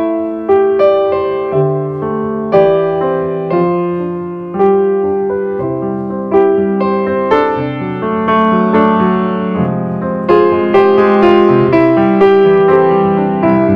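Background piano music: a slow melody of struck notes that ring and fade, over chords.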